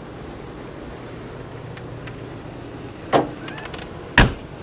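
Two knocks about a second apart over a low steady hum, the second a sharp clack and the loudest.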